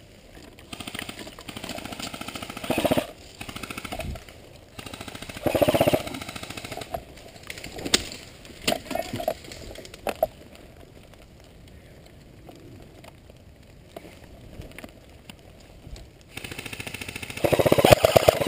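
Airsoft electric gun firing rapid full-auto bursts: short bursts about three and six seconds in, and a longer burst near the end.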